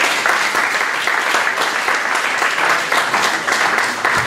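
Audience applauding, with dense, steady clapping from many hands at the close of a talk.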